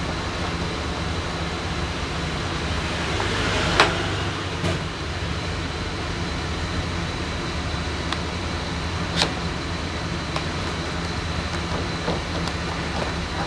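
Steady low hum with a few short sharp clicks and knocks of hand work. The loudest click comes about four seconds in, after a brief rising rush of noise, and a sharper one comes near nine seconds.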